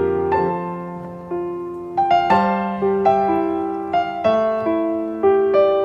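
Background keyboard music: a gentle melody of single notes struck one after another, each left to ring and fade.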